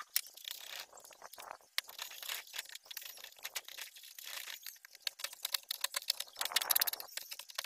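A small hand-held carving blade paring shavings from a groove in a wooden block: a run of quick, dry, irregular scrapes and ticks, coming thickest in a burst near the end.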